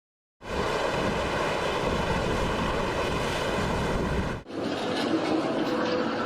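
Storm at sea: heavy wind and rough waves, loud and steady. There is an abrupt cut about four seconds in to a second stretch of wind and water noise.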